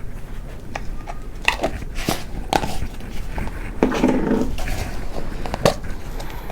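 Kitchen utensils and containers knocking and clicking against a cooking pot several times, with a short scraping rustle about four seconds in, as spices are added to catfish.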